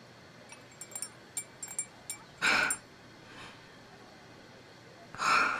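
A quiet room with a few small clicks and clinks, then a short call about two and a half seconds in and a longer one near the end, both sounding distant.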